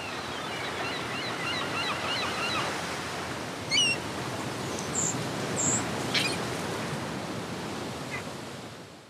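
Steady wash of harbour water, with a run of quick high chirps in the first few seconds, a single falling chirp and two short high squeaks around the middle, and a brief rattle; the sound fades out at the end.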